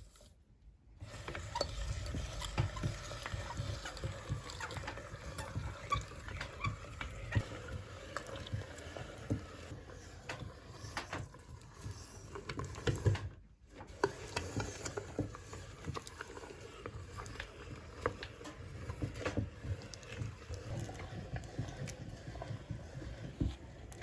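Meat grinder working mini ice cream: a dense, irregular run of clicks, crunches and squelches over a low rumble. There is a short break about a second in and another about halfway through.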